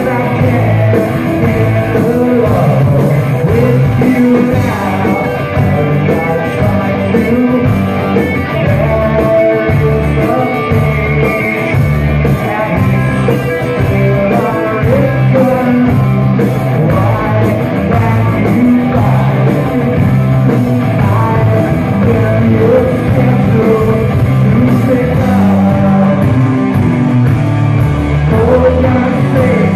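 Live rock band playing loud electric guitars, bass and drums, with a male lead singer's vocals over the top.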